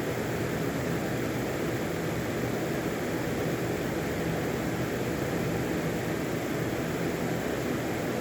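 Steady hiss with a faint low hum underneath, unchanging, with no distinct events.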